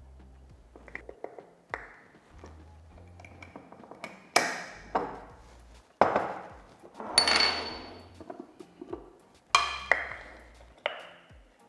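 A scoop knocks and clinks against a glass flour jar and a glass mixing bowl as flour is measured out. It gives a series of sharp glassy clinks, each ringing briefly, the loudest spread across the middle and end.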